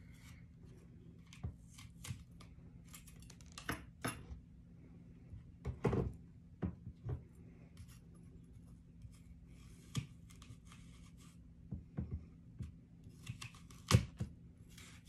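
Kitchen knife cutting the seeds out of an apple: irregular crisp cuts and clicks of the blade, with a sharper knock near the end.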